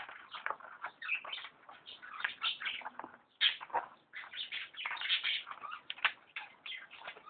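Irregular scratching and scrabbling in quick, uneven strokes with short pauses, as a tube stuck in a desk is clawed and worked at to get it out.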